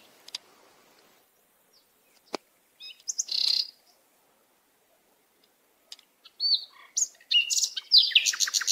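Birds chirping in short shrill calls: a few around the start, a pause of about two seconds, then a busier stretch ending in a fast, even run of chirps.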